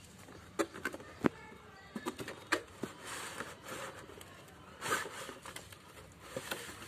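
Cardboard boxes being handled: scattered taps and knocks, with stretches of scraping and rustling about three and five seconds in as a product box is slid out of a shipping carton.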